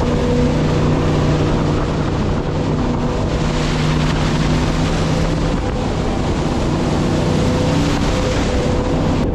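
Jet boat under way: its engine runs with a steady drone over the rush of water and wind on the microphone.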